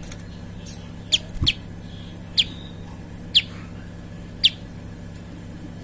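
Prinia (prenjak) calling: short, sharp, down-slurred chirps, five in all about a second apart, over a steady low hum.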